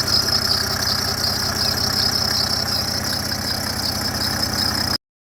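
Mercedes W124 300TD's OM603 naturally aspirated six-cylinder diesel idling, with a steady high-pitched squeal from the poly-V belt. The owner asks whether a broken power steering pump bracket is the cause. The sound cuts off abruptly near the end.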